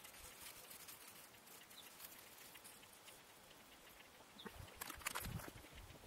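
Near silence: faint outdoor hiss with two faint high chirps, and a short cluster of soft clicks and low knocks a little before the end.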